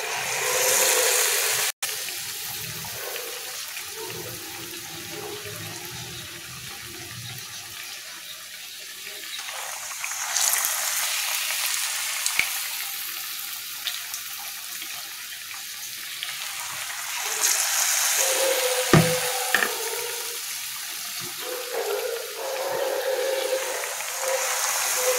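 Hot oil sizzling as ragi-batter fritters deep-fry in a pan, swelling louder several times as more batter-coated orange segments are dropped in. A sharp knock about two-thirds through.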